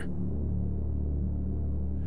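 Background music: a low, steady sustained drone with no beat.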